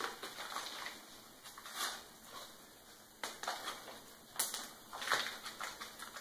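Clear plastic hardware bag crinkling in short, irregular bursts as it is handled and opened.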